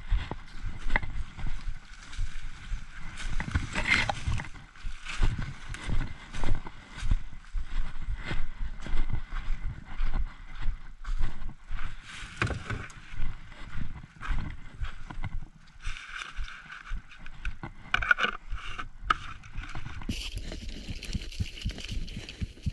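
Footsteps and rustling through forest undergrowth, with uneven thumps and knocks as gear and a plastic bucket are handled at an ATV.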